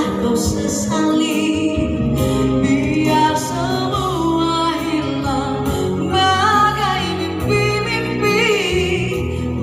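A woman singing into a handheld microphone, amplified over backing music, her held notes wavering with vibrato.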